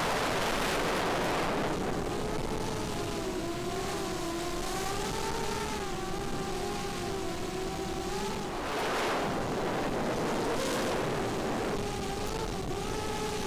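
A quadcopter's SunnySuky 2204 2300kv brushless motors spinning DALPROP 5045 bullnose propellers, whining with a pitch that wavers up and down as the throttle changes. Heavy wind rush on the onboard action camera's microphone runs under it and surges at the start and again about nine seconds in.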